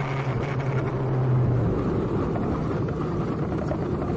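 Motorcycle engine running on the move, with road and wind noise. Its steady hum fades about two seconds in.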